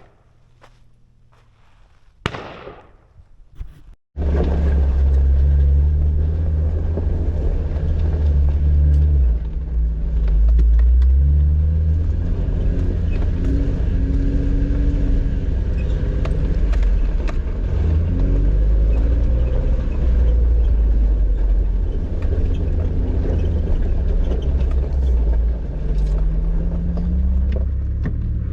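Jeep engine working off-road, its low rumbling note rising and falling as the throttle is worked in a low gear. It starts abruptly about four seconds in, after a few quieter seconds broken by two short sharp noises.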